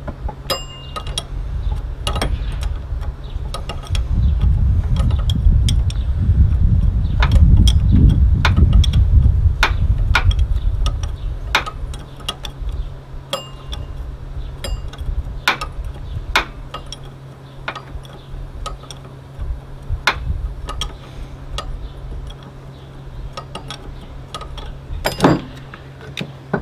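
Combination wrench working the high-pressure line fitting on a car's power steering pump: scattered sharp metal clicks and taps, over a steady low hum. A low rumble swells for several seconds in the first half, and a louder metal clank comes near the end.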